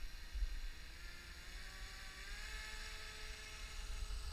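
Faint whine of the RC ice boat's propeller motor spinning up, its pitch rising over a second or so and then holding steady, with wind rumbling on the microphone.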